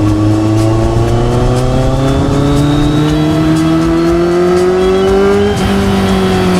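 Motorcycle engine under way, its pitch climbing steadily as it accelerates. About five and a half seconds in there is a short break, after which the pitch eases slightly.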